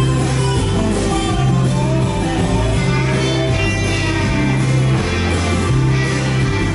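Song with guitar over a steady, repeating bass line.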